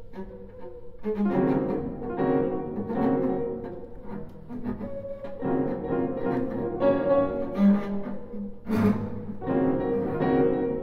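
Cello playing a contemporary classical chamber piece, a string of sustained bowed notes, with piano beneath.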